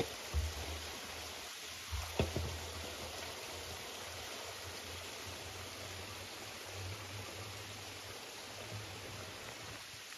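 Water running steadily from a village spring spout onto stone, with a few knocks in the first few seconds as a metal water vessel is handled.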